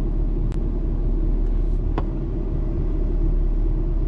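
Steady road and engine rumble inside a moving vehicle's cabin, with two faint clicks about half a second and two seconds in.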